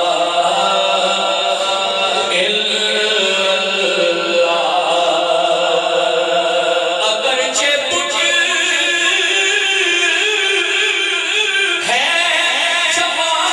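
Devotional Islamic kalam sung in a chanting style, voices continuing without a break.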